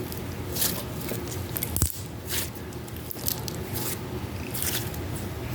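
Slime being squeezed and stretched by hand: wet squishing with irregular crackles and several sharp clicks from trapped air bubbles popping.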